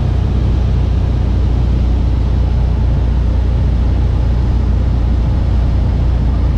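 A 1975 Mooney M20F's 200 hp fuel-injected four-cylinder Lycoming IO-360 engine and propeller running steadily in cruise flight, heard inside the cabin as a loud, even low drone with air noise over it.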